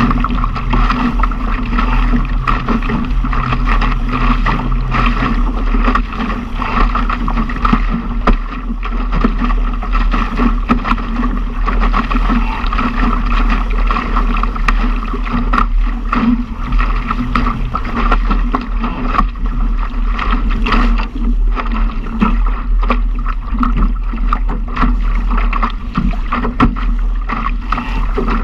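Laser sailing dinghy's hull slapping and hissing through wind-driven chop, with spray splashing off the bow in irregular bursts. Strong wind rumbles steadily on the deck-mounted microphone.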